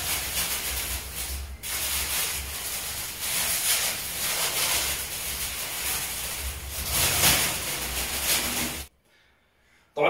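Dry bird seed (millet, canary seed, niger, flax, oats and hemp seed) being tossed and stirred together by hand: a continuous rustling hiss of grains sliding over one another in uneven surges. It stops suddenly near the end.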